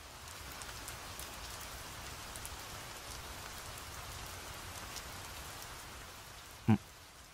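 Sudden rain shower, a steady patter of rain falling with scattered single drop ticks, swelling in over the first second. Near the end a short, sharp vocal sound cuts in once over the rain.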